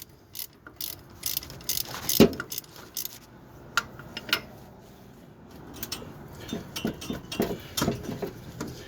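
Irregular metallic clicks and clinks of a hand wrench working a stuck alternator mounting bolt on a Ford 4.9L straight-six, with a louder knock about two seconds in and a quicker run of clicks near the end; the bolt is binding and will not come out.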